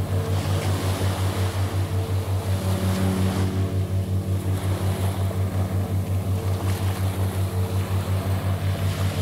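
Meditation background track: a low hum pulsing steadily about four to five times a second under soft held drone notes, with a rushing hiss that swells and fades like surf.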